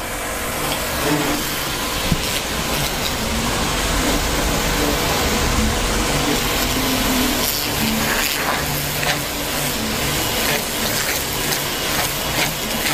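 Portable electric high-pressure washer running, its water jet spraying steadily onto a car body as a loose coat of dust is rinsed off.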